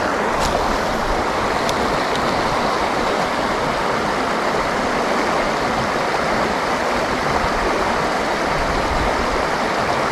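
River water running over a shallow, stony riffle: a steady rushing. A few faint clicks in the first two seconds.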